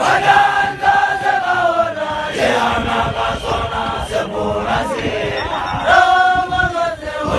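Group of Basotho initiation graduates (makolwane) chanting a song in unison. Two long held notes sag slightly in pitch, one at the start and one about six seconds in, with shorter chanted phrases between.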